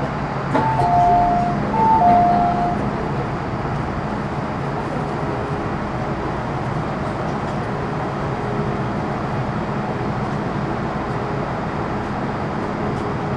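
Inside an MTR Metro Cammell M-Train car, a two-note chime sounds twice, each time a higher note followed by a lower one, about a second apart. It is followed by the train's steady interior noise with a faint constant hum.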